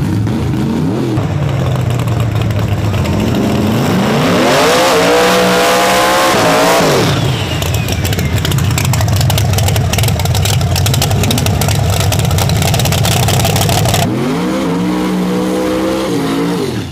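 Drag-car engines revving hard through smoky burnouts, with the revs climbing and falling twice, about four seconds in and again near the end, over a steady high-rev drone between.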